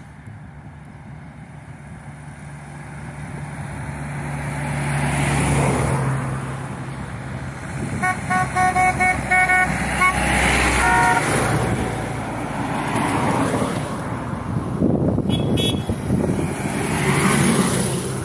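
Vintage cars and a vintage lorry in a rally convoy drive past one after another, each engine swelling as it nears and fading as it goes by. About eight seconds in a horn gives a rapid run of short beeps for about two seconds, then one longer horn note.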